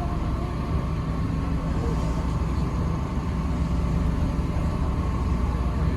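Tour boat under way: a steady low engine drone.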